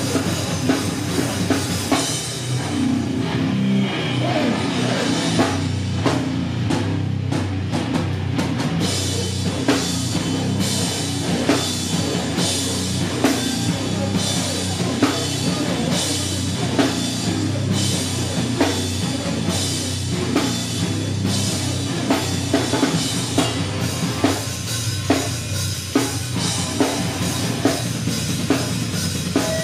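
Live band playing loud heavy rock, with pounding drums up front and guitars underneath.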